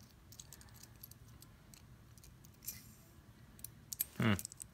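Small metal fidget spinners handled on a surface: scattered light metallic clicks and taps, with a brief voiced sound near the end.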